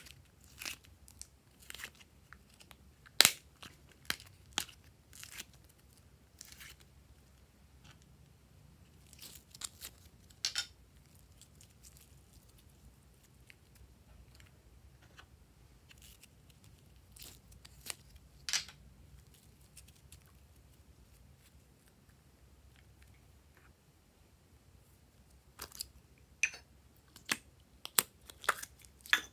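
Sharp plastic clicks and crackles as slime is worked out of a plastic pill organizer's compartments, coming in scattered groups with quiet gaps between. The loudest snap is about three seconds in.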